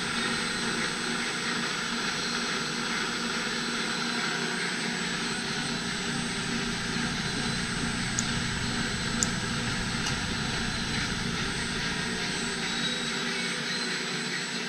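Milling machine running, its spindle driving a 90-degree double-sided end mill along an axle shaft as it cuts a spline groove: a steady whir with a constant high, thin whine. A few faint ticks come about eight to ten seconds in.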